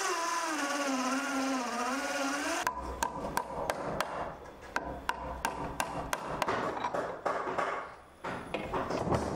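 Electric hand drill boring into wood, its motor whine sagging in pitch under load and picking up again before it stops about three seconds in. Then a run of irregular sharp hammer knocks on wood, typical of driving a wooden dowel into the drilled hole.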